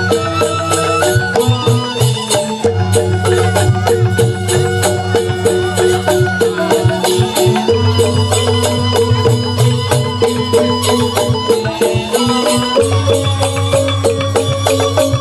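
Balinese gamelan ensemble playing a tabuh petegak instrumental piece. Bronze-keyed metallophones are struck in fast, dense interlocking figures over ringing sustained tones, with bamboo suling flutes playing along.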